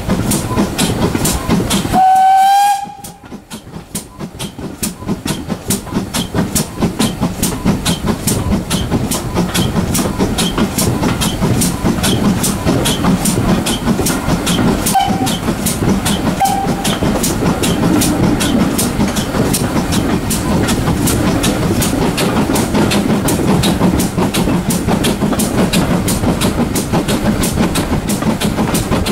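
GWR 2-6-2 Prairie tank locomotive 5521 running under steam with a steady, rapid beat, along with its train's wheels clattering on the track, as heard from a carriage just behind. About two seconds in the engine sounds a short whistle blast, and two brief toots on the same whistle follow about halfway through.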